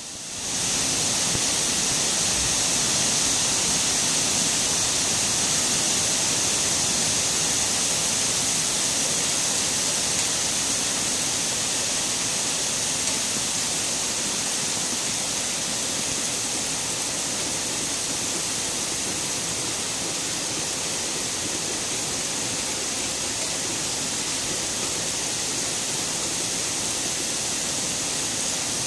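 Heavy rain pouring down in a severe storm ahead of a tornado, a loud, steady hiss.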